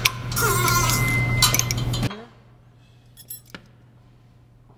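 Steel pump shaft and ball bearings handled, metal clinking and scraping with some ringing. The noise cuts off suddenly about two seconds in, leaving a few light metallic clicks.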